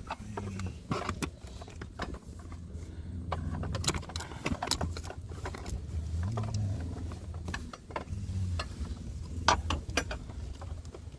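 Scattered sharp clicks and clacks of tools and plastic dashboard trim being handled as panels and screws are worked loose, over a low steady hum.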